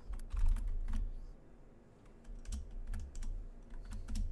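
Typing on a computer keyboard: a username and password keyed in as sharp key clicks, in two short runs with a pause of about a second between them.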